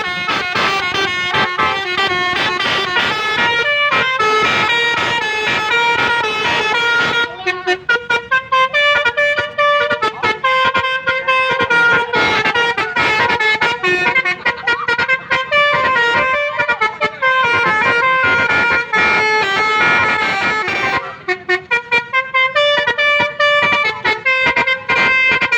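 Telolet basuri multi-tone horn on a Toyota Avanza playing a tune in stepped horn notes. The first several seconds hold longer notes, then it switches to quick, choppy staccato notes, with another fast choppy run near the end.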